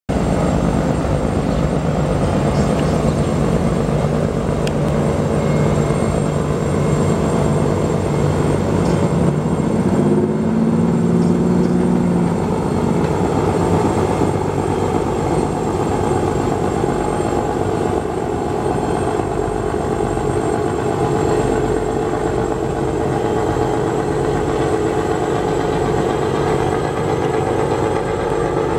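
Engines of the M.V. Eagle-8, a large multi-deck river passenger launch, running steadily as the vessel passes under way. About ten seconds in, a low steady tone sounds for about two and a half seconds over the engine noise.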